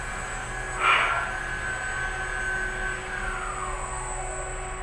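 Electric train's traction motors and inverter whining as the train brakes: a steady high tone that glides down in pitch about three seconds in as it slows, heard from inside the car. A short burst of noise about a second in is the loudest moment.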